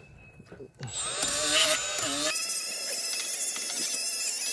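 Cordless rotary tool with a small abrasive disc spinning up about a second in, then running steadily with a high whine as it cleans buildup off the engine's flywheel magnet surface.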